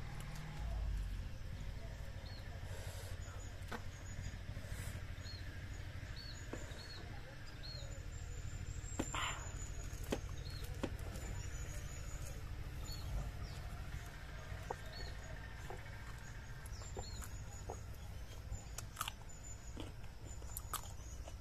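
A person chewing and handling raw leaves and small green fruits, with scattered small crunches and clicks. A small bird chirps over and over in the background, over a low steady rumble.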